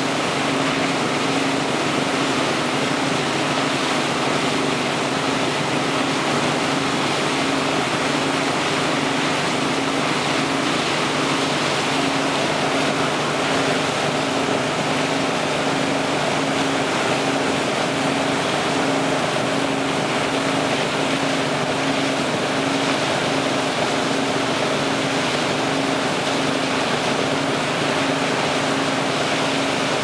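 Towboat's engine running at a steady speed, a constant hum, over the continuous rush of its churning wake.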